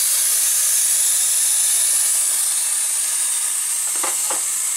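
Loud, steady hiss of compressed air venting in the cab of an Alstom Coradia Meridian ETR 425 electric train, with two light clicks about four seconds in.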